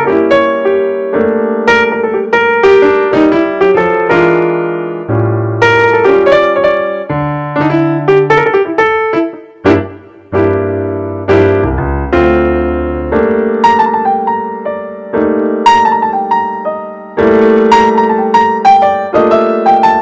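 Background piano music: a melody of struck notes over held lower notes, with a brief pause about ten seconds in.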